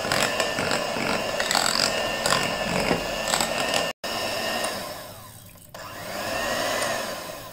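Electric hand mixer running steadily, its twin beaters whipping a thick ice-cream batter of whipped cream, condensed milk and peanut butter in a glass bowl, with a few clicks and a brief break about four seconds in.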